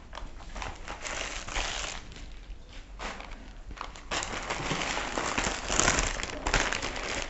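Clear plastic packaging crinkling and rustling as it is handled, growing louder about four seconds in.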